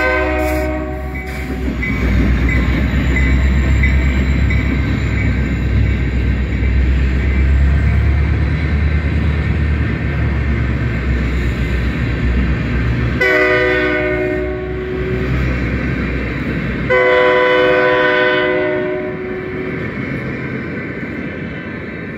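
Canadian National freight train's diesel locomotive horn sounding a multi-tone blast that cuts off about a second in, then two more blasts about 13 and 17 seconds in. Under it runs the low rumble of the train rolling past, covered hopper cars following the locomotive, which weakens after the last blast as the train moves off.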